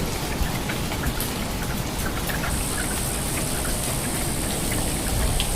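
Steady rain falling, with scattered distinct drops ticking close by. About halfway through, a steady high-pitched hiss joins in and holds.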